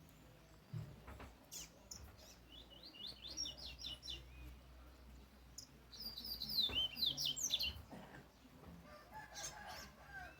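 Caged double-collared seedeater (coleiro) singing: two bursts of quick, falling high-pitched notes, the second, about six seconds in, louder and longer.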